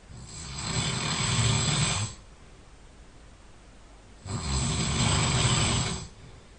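A person snoring loudly in sleep: two long snores about four seconds apart, each lasting about two seconds, with a low buzz.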